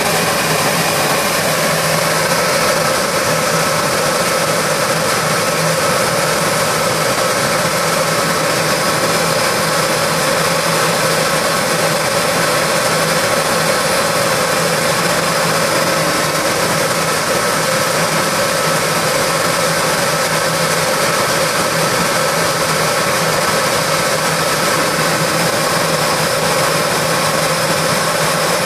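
CNC router spindle running steadily while its bit cuts a polycarbonate sheet: a continuous machine drone with a steady whine, unchanging throughout.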